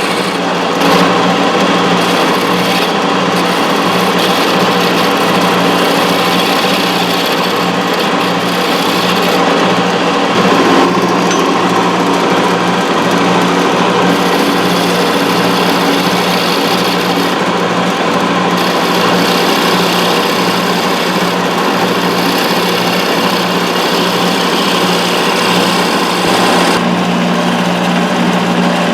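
Wood lathe running steadily with a constant motor hum, under a dense hiss of a turning tool cutting the spinning wood of a finial; the hiss thins out briefly a few times and again near the end.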